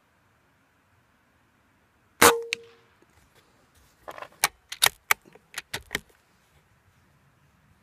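A .25 Benjamin Marauder PCP air rifle fires once, a sharp crack with a brief metallic ring, and a fainter click follows a moment later. About two seconds after the shot, a quick run of mechanical clicks as the bolt is cycled to load the next pellet.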